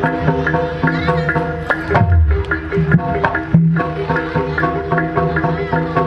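Javanese kuda kepang ensemble music: kendang hand drums beat a fast, steady rhythm over sustained melodic notes, with a deep drum stroke that bends down in pitch about two seconds in.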